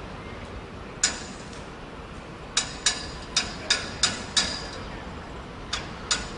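Hammer blows on metal: sharp knocks, each with a brief metallic ring. There is one about a second in, a quick run of six starting about two and a half seconds in, and two more near the end.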